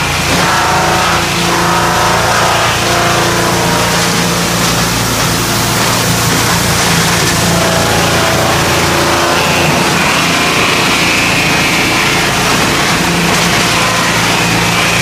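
Wood sawdust machine running: a loud, steady mechanical drone with a hum from its motors and fan, and a higher whine that comes and goes in the second half.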